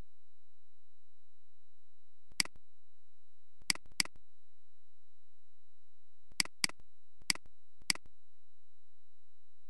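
Computer mouse clicking: seven short, sharp clicks, including two quick double-clicks, over a steady faint hum with a thin high whine.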